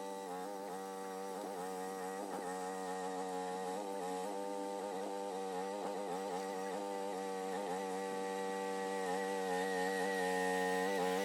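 Mini excavator engine running steadily, its pitch wavering slightly as the hydraulics take load, growing a little louder near the end.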